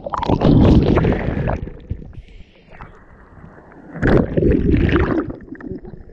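Shallow ocean surf sloshing and rushing around a camera held at the waterline. There are two loud surges of churning water, one just after the start lasting over a second and another about four seconds in, with quieter sloshing between.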